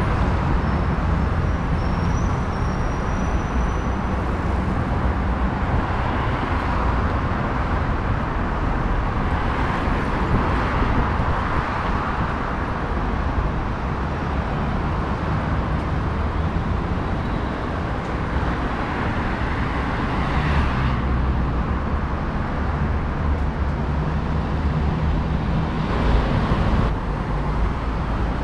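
Steady road traffic on a wide city avenue: a continuous rumble of car engines and tyres that swells now and then as vehicles pass close by.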